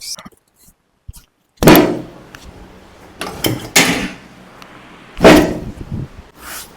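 Several sudden loud thuds from a chiropractic spinal adjustment: the patient's body and the treatment table thumping under the chiropractor's repeated thrusts. The loudest come about a second and a half in and about five seconds in.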